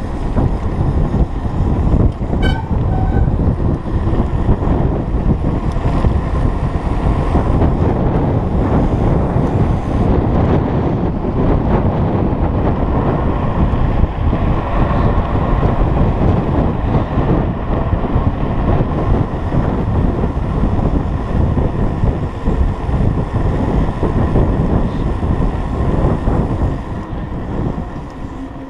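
Heavy wind buffeting on an action camera's microphone as a mountain bike rolls along a paved road at speed, with a short high beep about two and a half seconds in.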